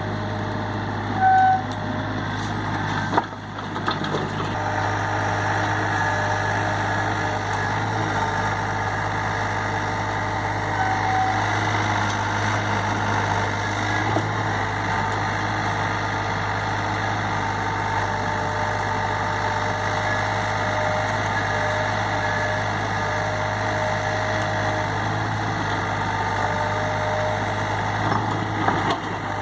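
SANY SY35U mini excavator's diesel engine running steadily at work, with short high tones coming and going over it. There is a loud brief tone about a second in and a sharp knock about three seconds in.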